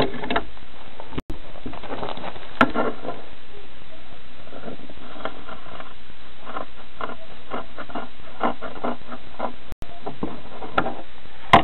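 A paper mailer envelope being scratched, picked at and torn open by hand: irregular rustling and scraping strokes over a steady hiss.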